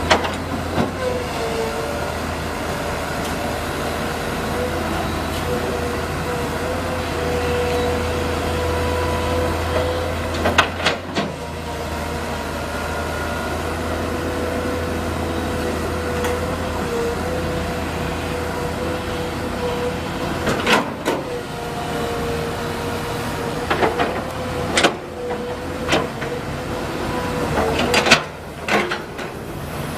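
Komatsu PC200 hydraulic excavator working: its engine runs steadily under a held hydraulic whine, with sharp knocks and clanks from the digging about ten seconds in and several more in the last third.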